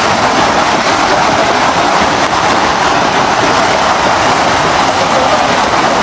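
Loud, steady splashing of a large school of fish thrashing at the surface inside a beach seine net as it is hauled in.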